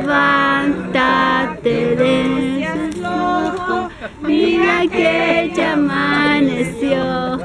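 A small group of people singing a birthday song together, unaccompanied, in sustained sung notes.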